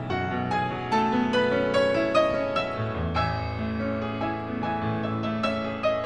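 Soft instrumental background music led by piano: a gentle melody of struck notes over sustained chords.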